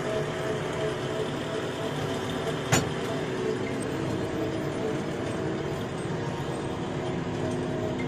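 JCB 3DX backhoe loader's diesel engine running steadily, heard from inside the cab, with a single sharp click about three seconds in.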